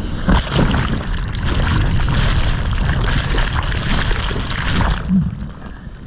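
A breaking wave crashes over a sea kayak and washes over the microphone: loud rushing, gurgling whitewater that cuts off suddenly about five seconds in.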